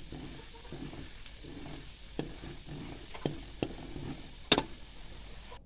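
Spatula stirring and scraping coconut cream cooking down in a metal wok, the separated coconut oil bubbling and sizzling. It comes with a few sharp knocks of the spatula against the wok, the loudest about four and a half seconds in. The oil has separated from the browned solids, the late stage of making coconut oil.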